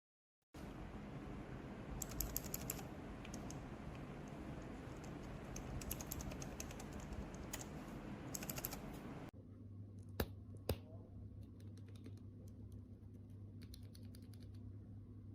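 Typing on a mechanical keyboard with Outemu Crystal silent linear switches: runs of soft, muted key clicks over background hiss. About nine seconds in, the background changes to a quieter one with a low hum. Two sharper clicks follow, then more light typing.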